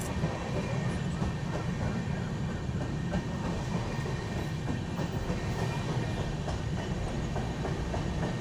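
Passenger express train running, heard from inside a coach: a steady low rumble with faint irregular clicks from the wheels on the rails.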